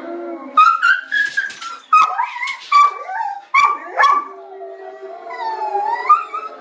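Vizsla barking at a video of howling wolves: about five sharp, loud barks that drop in pitch, in the first four seconds. Under and after them, the wolves' long, held howls play through computer speakers.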